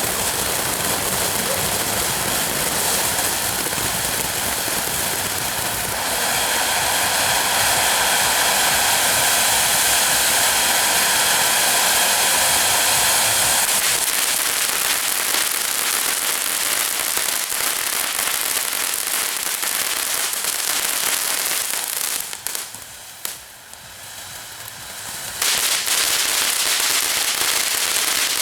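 Consumer fireworks going off in a dense, continuous crackle and popping that lets up for about three seconds near the end, then starts again.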